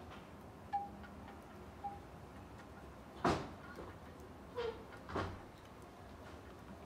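Copper tie wire being twisted shut over a bonsai's root ball: a few light clicks and small pings, the loudest a little past three seconds in, with two more near the end.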